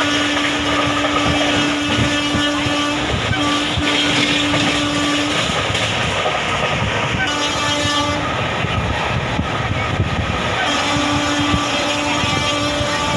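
Express passenger coach running at about 120 km/h: a steady loud rush of wheel, rail and wind noise with a humming tone that drops out and comes back a few times. The coach is continuously hunting (swaying side to side) at this speed, as the uploader's caption has it.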